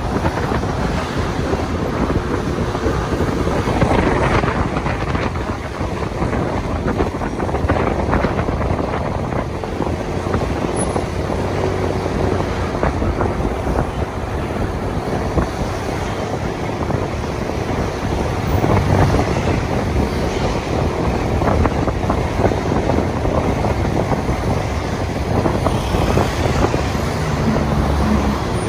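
Traffic noise with wind rushing over the microphone, heard from a moving motorbike.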